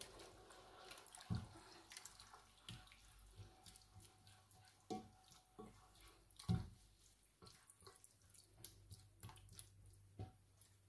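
Wooden spoon stirring wet minced beef and tomatoes in a baking dish: faint, scattered wet squelches and soft knocks of the spoon against the dish, the loudest about six and a half seconds in.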